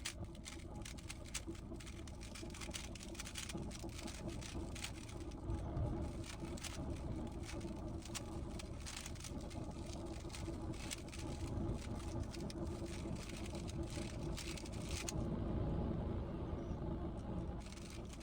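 Rapid plastic clicking and clacking of a 3x3 Rubik's cube being turned by hand, over a steady low hum; the clicks thin out about three-quarters of the way through.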